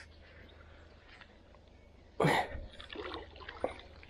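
A hooked carp splashing in the water as it is landed: one loud splash about two seconds in, then a few smaller splashes and drips.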